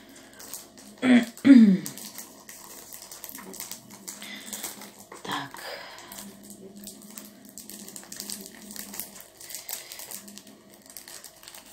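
Thin plastic wrapping film on a small perfume box crackling and clicking as it is slowly peeled open by hand. A brief loud voice sound comes about a second in, and a shorter one near the middle.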